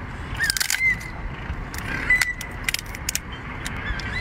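Cooked crayfish shell cracking and crunching as it is torn apart by hand: a series of sharp, brittle cracks in two clusters, about half a second in and again around the third second.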